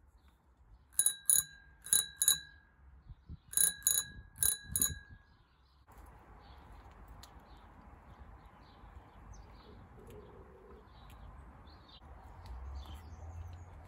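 Rusty old dome bicycle bell on the handlebars rung in two quick runs of four or five bright dings, the second run starting about three and a half seconds in.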